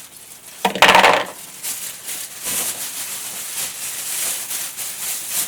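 Metal kitchenware clattering: a sudden short rattle about a second in, like a utensil or lid knocking against a pot, then a few lighter knocks over a steady high hiss.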